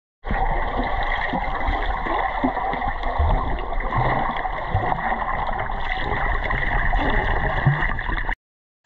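Water splashing and gurgling over a steady background hum, with scattered low thumps, cutting off abruptly near the end.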